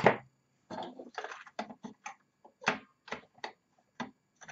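Plastic keys of a Roland D-50 synthesizer clicking and knocking as they are worked back into place on the keybed. There is an irregular string of sharp clicks, the loudest near the start and about two and a half seconds in.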